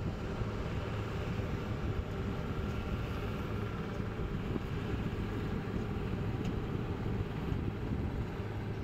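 A boat engine running steadily: an even low drone with a steady hiss of wind and water over it.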